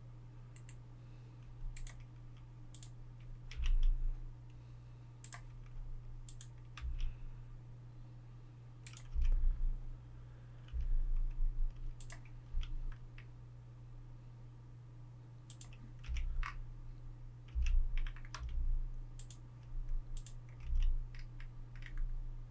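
Computer keyboard keys and mouse buttons clicking at irregular intervals, with dull low thuds among them, over a steady low hum.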